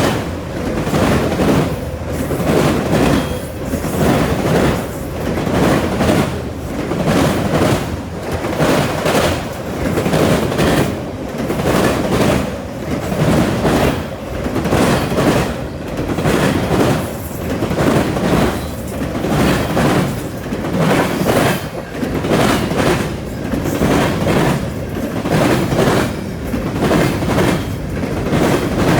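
Norfolk Southern freight train rolling past at a grade crossing, its car wheels clacking over the rail joints in a steady repeating rhythm of about one pulse a second.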